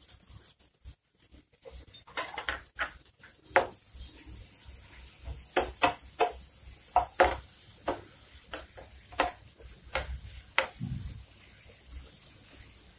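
A metal slotted spoon knocking and scraping against a non-stick frying pan as chopped onions, tomato slices and green chillies are stirred: irregular clinks, ending about two seconds before the close.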